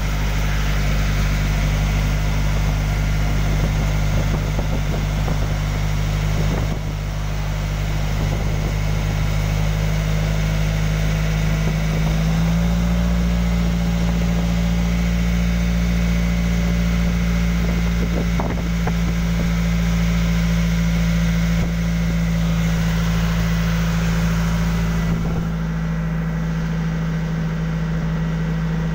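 Engine of a motorized outrigger boat (bangka) running steadily under way, a low even drone whose pitch steps up slightly about twelve seconds in.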